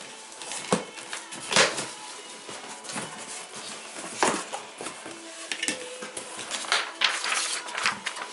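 A mail parcel being handled and unwrapped: irregular crackling, rustling and sharp knocks of packaging being pulled open.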